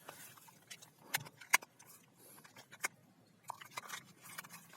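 A few scattered light clicks and taps, with a closer cluster of small clicks near the end.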